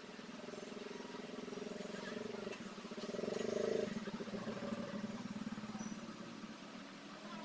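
A small engine running with a fast, even pulse, louder for about a second around three and a half seconds in.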